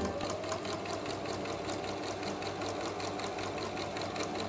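Electric sewing machine stitching a hem at a steady speed, its needle clicking in a fast, even rhythm.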